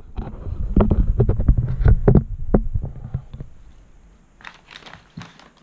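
Handling noise: crumpled wrapping paper crinkling and rustling, with low thumps and knocks from handling. It is loud for about three seconds, fades out, and gives a few faint clicks near the end.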